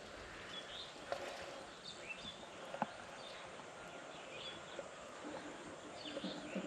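Quiet rural outdoor ambience with faint, scattered bird chirps and a few soft clicks.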